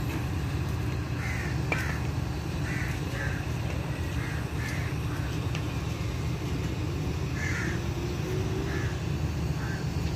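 Crows cawing repeatedly, short harsh calls spaced through the whole stretch, over a steady low rumble.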